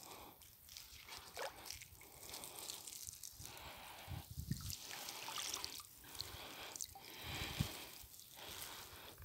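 Water dripping and streaming off a monofilament cast net as it is hauled up out of the water, coming in surges with each pull, about once a second.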